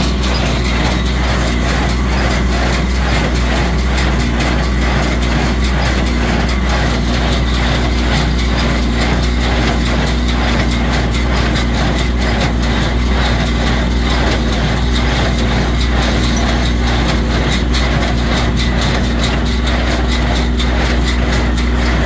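A tractor engine running steadily under load, driving a New Holland small square baler that picks up a windrow of hay, with the baler's mechanism clacking rhythmically. This is the baler making its first bale.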